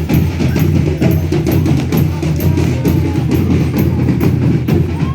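Folia de Reis band music: a drum beating a steady, even rhythm over a low, steady drone.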